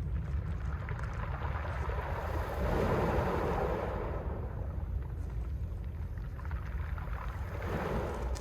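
Mediterranean sea waves washing onto the shore. One wave surges about a third of the way in and another comes near the end, over a steady low rumble of wind on the microphone.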